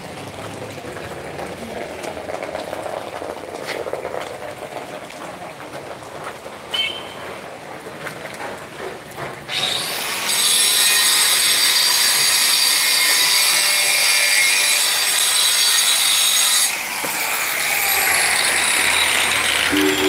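Storm wind and rain noise. About ten seconds in, a much louder steady high hiss with a thin whine in it sets in suddenly, lasts about seven seconds, then eases off.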